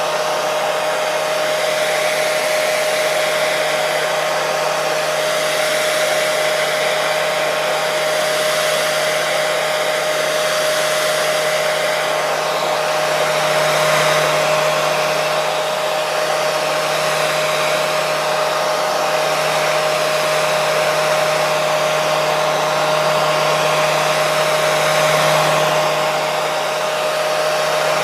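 Hair dryer running continuously: a steady rush of air with a constant motor whine, swelling slightly in level now and then.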